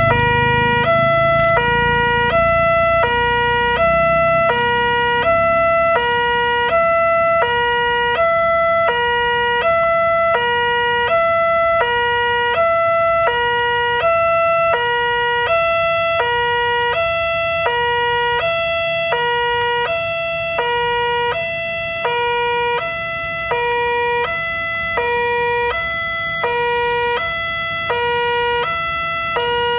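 Railway level-crossing warning alarm from a horn loudspeaker: two electronic tones, a lower and a higher, alternating at about one pair a second. It sounds steadily while the crossing is closed, warning that a train is approaching.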